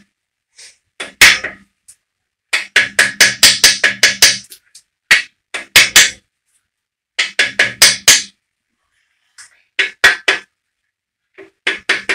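Soft-faced mallet tapping an engine main bearing cap back and forth to work it loose from the block, so the cap comes off without disturbing the Plastigauge. Quick runs of sharp knocks, about four a second at their fastest, some with a short low ring from the metal.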